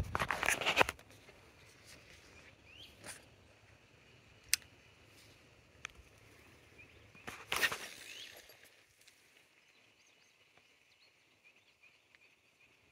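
Lakeside outdoor ambience: a faint steady high-pitched hum with short rising bird chirps. A loud rustling burst comes at the start and another about seven seconds in, with a couple of sharp clicks between them.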